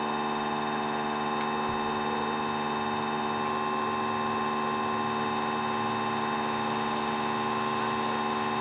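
Hawker Hurricane's Merlin V12 aero engine running steadily at constant speed on the ground, an even, unchanging drone with no rise or fall in pitch.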